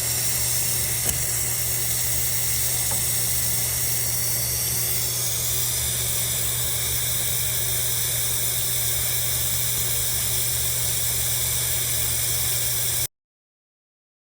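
Steady hiss of pressurised water running or leaking through plumbing, with a steady low hum underneath; it cuts off abruptly near the end.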